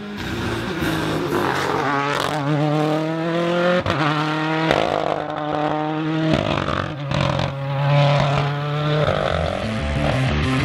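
Rally car engine at high revs, its pitch climbing through each gear and breaking off at the gear changes.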